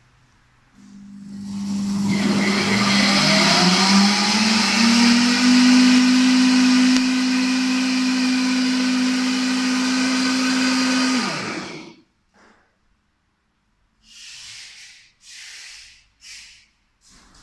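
Heating vacuum blender's motor spinning up with a rising whine over a few seconds, running steadily while blending thick hot soup, then winding down and stopping about twelve seconds in. A few short puffs of noise follow near the end.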